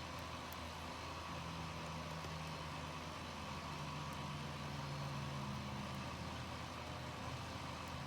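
A steady low hum with a light hiss, a few low tones coming and going around the middle, and a few faint ticks.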